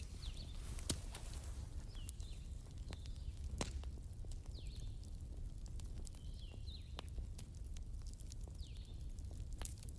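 Wood fire burning in a fireplace, damp fresh and old logs, over a steady low rumble, with a few sharp crackling pops and faint brief high squeaks.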